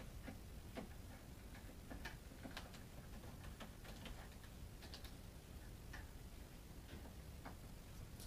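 Faint, irregular clicking of a hand screwdriver turning the long machine screws that hold a door lockset together.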